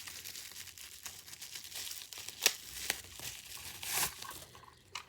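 Plastic packaging crinkling and rustling as it is handled and pulled open, with a few sharp clicks; a louder rustle comes about four seconds in.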